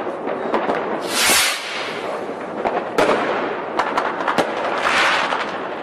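Aerial fireworks display going off in quick volleys: a dense run of crackling with several sharp bangs, and louder hissing swells about a second in and again near the end.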